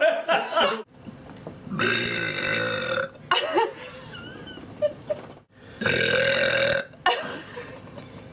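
A young woman burping on purpose, a series of belches. The two longest are drawn out for over a second each, about two and six seconds in.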